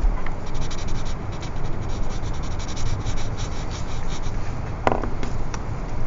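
Graphite pencil shading on drawing paper: a run of quick, scratchy back-and-forth strokes, thinning to a few scattered strokes near the end.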